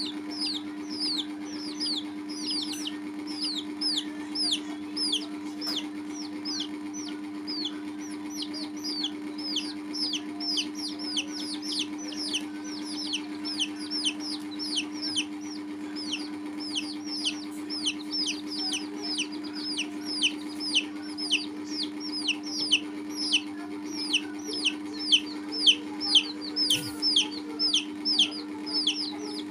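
Baby chicks peeping: a continuous run of short, high, falling peeps, about two a second, getting louder toward the end. A steady low hum runs underneath.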